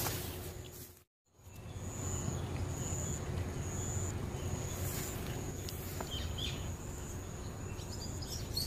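Outdoor garden ambience: a steady low rumble with a thin, steady high tone over it and a few faint bird chirps. The sound drops out completely for a moment about a second in, at a cut.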